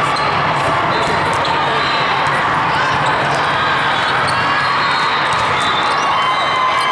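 Crowd noise in a gym during a volleyball match: steady spectator chatter, with a ball thudding on the hard court several times.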